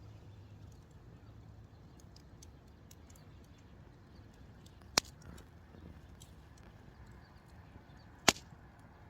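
Wood campfire, mostly burnt down, burning quietly with faint scattered crackles and two sharp pops, about five seconds in and near the end.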